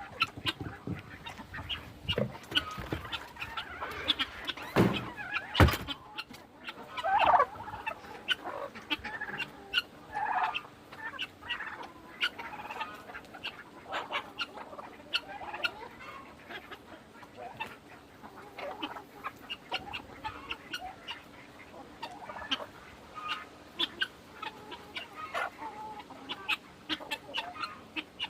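Flock of backyard chickens clucking and calling, with many short sharp ticks throughout and two loud knocks about five seconds in.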